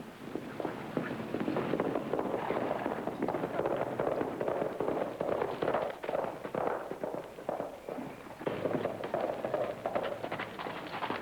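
Many horses galloping, their hooves making a dense, continuous clatter that eases briefly about eight seconds in and then picks up again.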